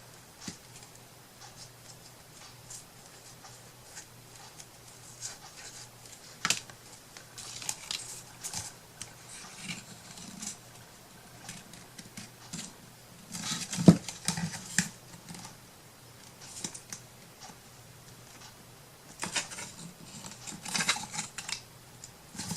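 Crafting handling sounds: scattered light clicks, taps and paper rustling as paper and small tools are handled, busiest about halfway through and again near the end, with one sharp click about 14 seconds in.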